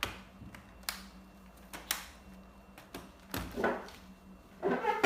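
Handling noise from a laptop being moved: sharp clicks about once a second, then louder clattering knocks and rattles of plastic twice near the end, over a faint steady hum.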